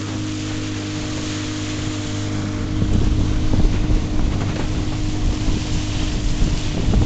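Outboard motor running steadily at speed on a long wooden piragua, with water spray hissing along the hull and wind buffeting the microphone. The wind and spray noise grows louder and rougher about three seconds in.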